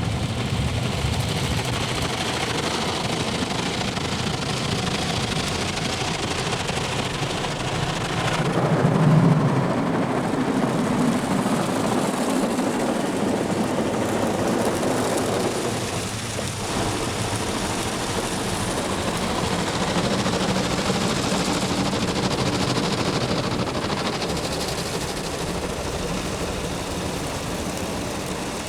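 WashTec SoftCare2 Pro rollover car wash working over the car, heard from inside the cabin: a loud, continuous rush and drumming of water and wash brushes on the bodywork. It grows louder and deeper about eight seconds in, then eases slightly about halfway through.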